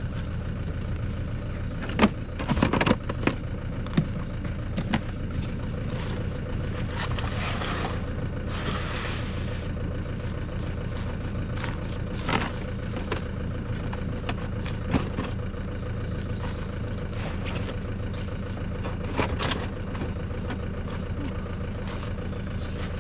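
A vehicle engine idling steadily, with knocks and rustles of gear being packed into a vehicle; the sharpest knocks come about two to three seconds in.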